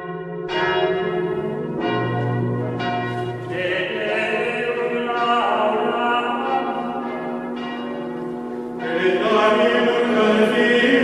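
Church bells ringing, a fresh strike about every one to two seconds with each one ringing on, over a sustained choral chant.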